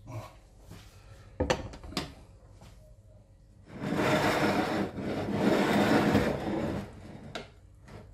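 Serving utensils clicking twice against a plate, then a ceramic plate scraped across the countertop for about three seconds as it is slid into place.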